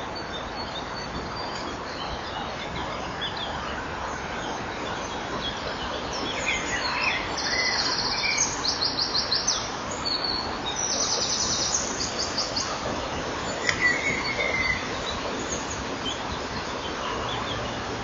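High-pitched bird calls over a steady hiss: two rapid trilled runs in the middle, with shorter chirps before, between and after them.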